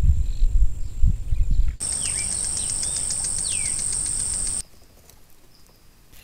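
Outdoor trail-camera sound in three cuts: first a low rumble with a few thumps, then a steady high-pitched insect buzz with several short bird chirps, then faint background sound.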